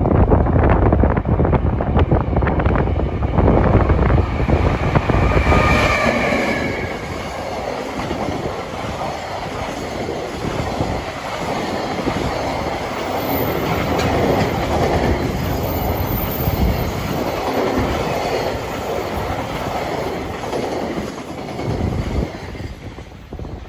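Freight train hauled by an EF510 electric locomotive passing close by. A heavy rumble comes first, then a brief high wheel squeal about six seconds in. The wagons then clatter steadily over the rail joints until the sound falls away near the end.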